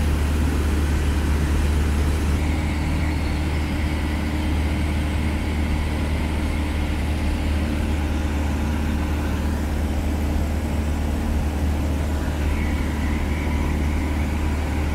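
Cessna 152's Lycoming O-235 four-cylinder engine and propeller droning steadily in flight, heard inside the cabin with an even rush of airflow noise.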